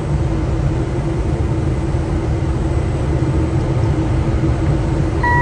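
Steady cockpit noise of an airliner on final approach: a loud, even rush of airflow and engine drone with a low rumble and a constant hum. Right at the end a short electronic beep from the cockpit begins.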